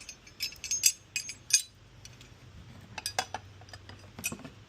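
Metal gate latch hardware clinking and clicking as it is handled and held in place, a quick run of light clinks in the first second and a half and a few more later.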